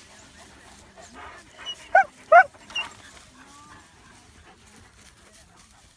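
A dog barking: two loud, sharp barks in quick succession about two seconds in, followed by a softer third bark.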